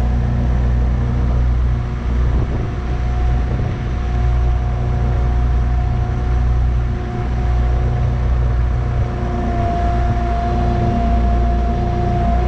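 Cat 301.7 CR mini excavator's diesel engine running steadily under a digging load, heard from the operator's cab, with a high hydraulic whine that gets louder near the end.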